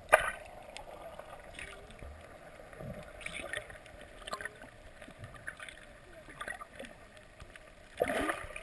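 Underwater sound through an action camera's waterproof housing: a steady muffled water hiss with scattered small clicks and bubble sounds. A sharp knock on the housing comes right at the start, and a louder gush of water and bubbles near the end.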